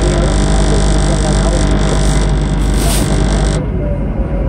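MTR South Island Line S-train heard from inside the car in a tunnel: a steady low rumble with a droning hum. The hiss above it drops away about three and a half seconds in.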